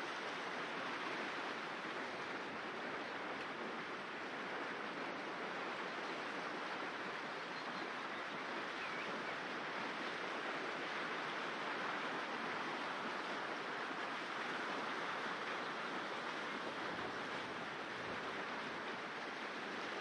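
River water rushing steadily over a shallow stony bed, a continuous even hiss.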